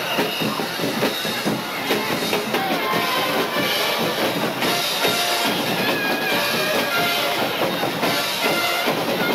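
Music with drums playing.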